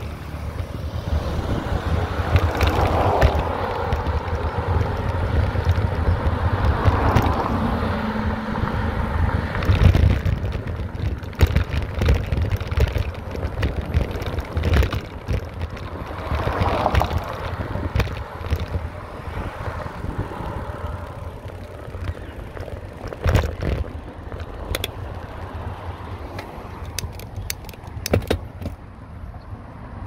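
Bicycle being ridden along a paved path: steady wind rumble on the microphone and tyre noise, with frequent clicks and rattles.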